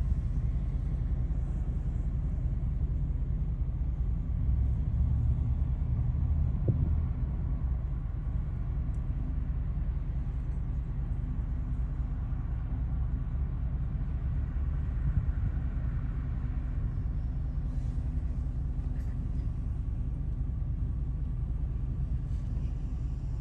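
Idling vehicle engine: a steady low rumble, with a faint steady hum that stands out for several seconds in the middle.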